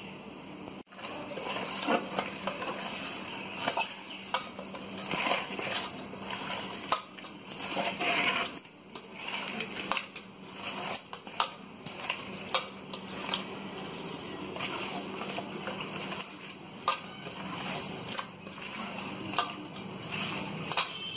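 A hand squishing and turning fish pieces in a wet chilli-masala marinade in a metal bowl, with irregular knocks and scrapes against the bowl. A steady low hum sits underneath.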